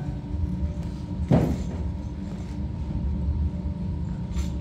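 Low steady rumble of a hall's background with a faint hum, and one short dull thud with a falling tone about a second and a half in.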